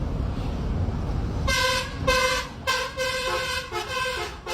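Low rumble for about a second and a half, then a multi-tone telolet horn plays a tune of short notes that change pitch, with brief breaks between phrases, in slow mode.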